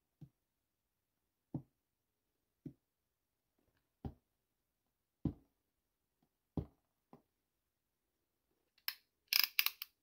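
A fingertip tapping lightly on a cardboard box about seven times, a second or so apart. Near the end, a quick run of sharp clicks as a utility knife's blade is slid out.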